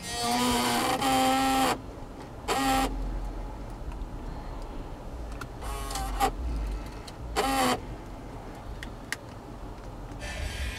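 Lexus 6-disc in-dash CD changer mechanism whirring in repeated bursts with a steady-pitched motor whine: two long runs at the start, then three shorter ones, and a sharp click. It is the changer cycling without playing, the fault the owner reports as a broken CD player with error code 3.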